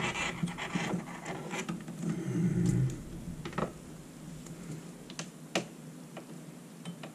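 Test leads and their clips being handled at a bench power supply's output terminals: scratchy rustling and scraping for the first few seconds, then a few separate light clicks.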